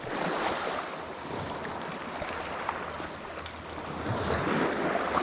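Small waves washing up over a pebble shore, a steady hiss that swells twice, near the start and about four seconds in.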